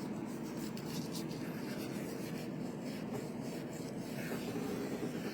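A brush sweeping gently over the keys of a computer keyboard: a steady rubbing that runs on without a break.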